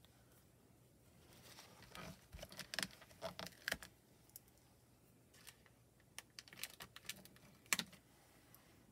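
Faint, scattered light clicks and taps of clear photopolymer stamps and a stamp positioner being handled on a craft desk, the sharpest click about three-quarters of the way through.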